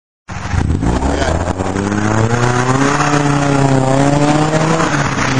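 A car driving past under acceleration: its engine note climbs and holds, then drops as it goes by about five seconds in. The sound cuts in suddenly just after the start.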